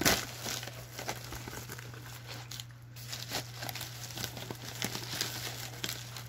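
Padded bubble mailer and its packaging crinkling and rustling as they are handled and the contents are pulled out, with a sharp crackle at the very start and scattered small crackles after. A steady low hum runs underneath.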